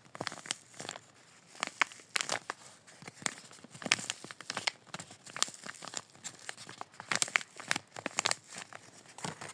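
Handmade squishy toy being squeezed over and over, crinkling with irregular sharp crackles.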